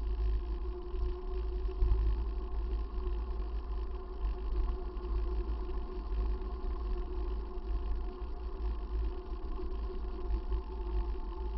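Wind rumbling and gusting on the microphone of a bicycle-mounted camera while riding along a tarmac road, with a steady faint hum running underneath.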